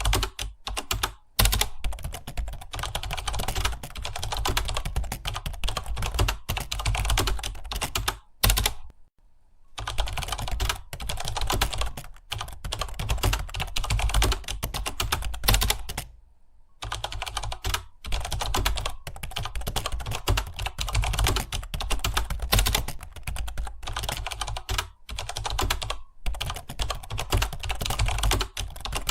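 Fast typing on a computer keyboard: a continuous clatter of keystrokes, broken by two short pauses, around nine seconds in and again around sixteen seconds in.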